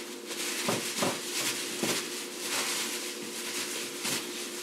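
Plastic-gloved hand tossing shredded green papaya salad in a glass dish: continuous crinkly plastic rustling and wet squishing of the shreds, with a few sharper knocks against the dish.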